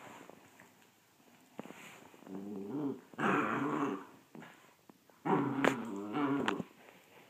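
A puppy play-growling in rough bouts: a short one about two seconds in, a louder one just after three seconds, and a longer one from about five seconds until shortly before the end, with a few sharp clicks in it.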